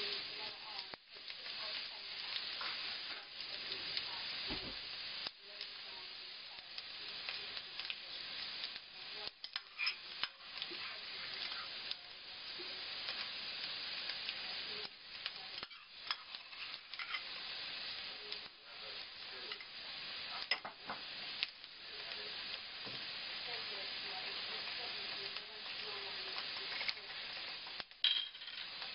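Finely chopped onion sizzling as it fries in a non-stick wok, stirred and scraped with a wooden spatula.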